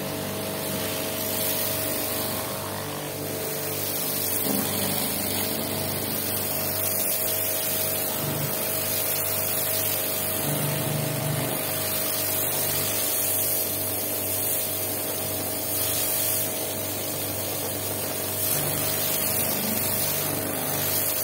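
High-pressure washer spraying a jet of water onto the corrugated steel plates of a plate heat exchanger: a steady hiss of spray with a constant hum under it.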